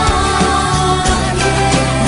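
Background music with a steady beat, bass and sustained chords.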